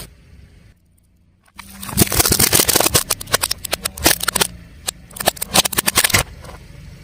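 A car tyre rolling over and crushing something brittle: a dense run of crackles and snaps lasting about four and a half seconds, starting after a brief silent gap. Under it runs the low hum of the car's engine, which goes on alone near the end.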